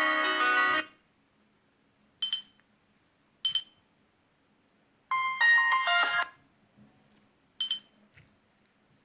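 Nokia C6-00 ringtones and alert tones played one after another: a chiming melody that ends about a second in, two short high pings about a second apart, a brief melodic jingle about five seconds in, and another short ping near the end.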